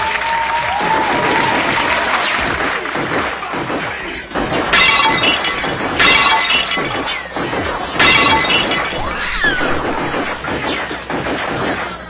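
Rapid gunfire and glass shattering over music: a dense crackle, then three loud crashes about five, six and eight seconds in, with short falling whines like ricochets.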